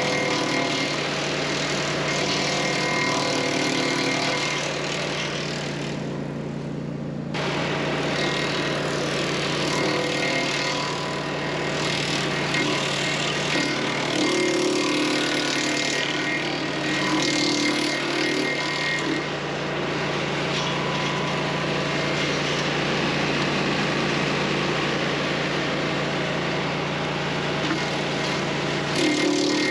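DR wood chipper attachment on a DR XL Pro power unit, its engine running steadily while branches are fed through and chipped. The chipping noise rises and falls as the wood goes in, and dips briefly about six seconds in.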